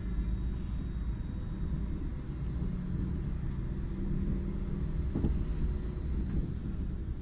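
Steady low rumble of a moving train heard from inside a passenger carriage, with a couple of faint knocks about five and six seconds in.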